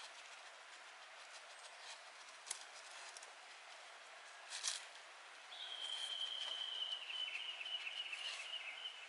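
A dog nosing through dry leaf litter, with faint rustles and a couple of light clicks. About halfway through, a thin high whine starts and holds steady for about three and a half seconds, sinking slightly in pitch.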